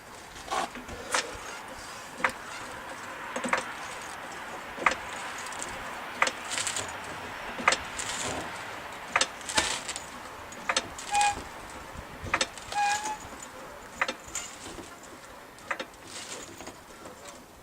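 Irregular sharp metallic clicks and clanks, roughly one a second, over a faint steady hiss, with two short squeaks around the middle: tools and metal parts being handled. No impact wrench hammering is heard.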